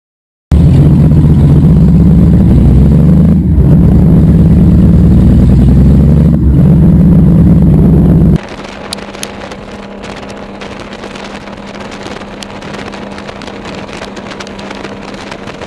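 Honda Valkyrie flat-six motorcycle with Cobra exhaust running loud and low, close to the microphone. After a cut about eight seconds in, a Valkyrie cruising on the highway: a quieter steady engine drone under wind buffeting the microphone.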